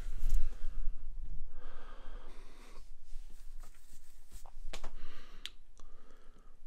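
A man breathing close to the microphone: several noisy breaths in and out, each under a second. Bumps from the camera being handled come in the first second or so, and a few sharp clicks near the middle.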